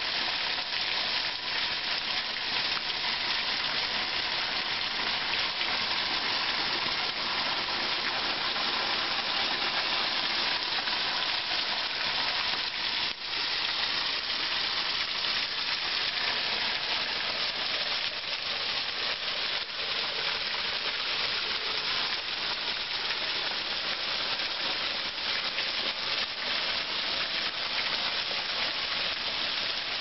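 Small waterfall: a thin stream of water falling onto rocks and a shallow pool, giving a steady splashing hiss.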